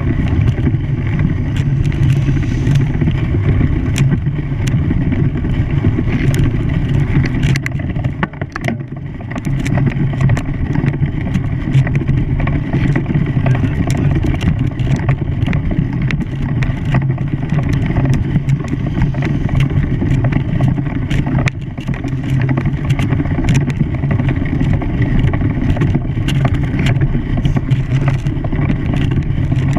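A vehicle engine running steadily with a low hum, dipping briefly about eight seconds in before carrying on.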